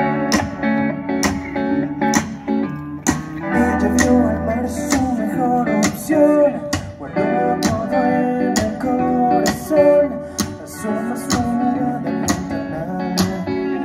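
Live rock band playing an instrumental passage: electric guitars over a drum beat, with bass and the full band coming in louder about three and a half seconds in. No singing yet.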